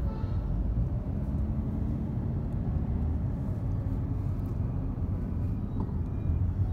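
Steady low rumble of a moving vehicle with road noise.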